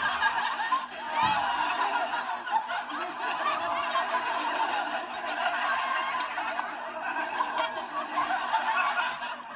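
Crowd of many people laughing, a canned audience-laughter effect from the cartoon, heard thin and tinny through a laptop's small speakers.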